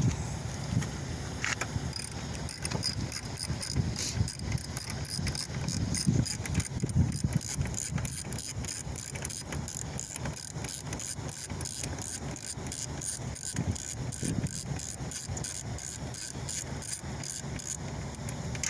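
Hand ratchet with a 10 mm socket clicking steadily, about three or four clicks a second, as it backs out the tail-light mounting bolt.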